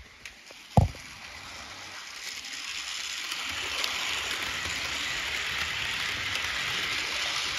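Bachmann model train rolling along its track: a steady mechanical hiss of wheels and motor that grows louder over the first few seconds as the cars come past. A single sharp knock about a second in.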